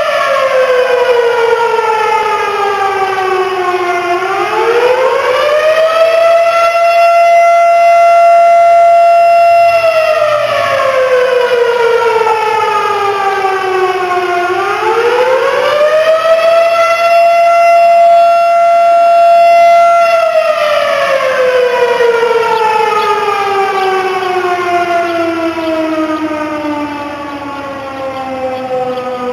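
Town fire siren sounding a fire alarm: one loud wailing tone that holds high, sinks slowly over several seconds, climbs back quickly and holds again, twice over. Near the end it slides steadily lower and fades as the siren winds down.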